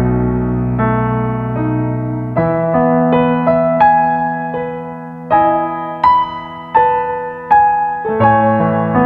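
Slow, soft piano music: a melody of single notes, each struck and left to ring and fade, over held bass notes.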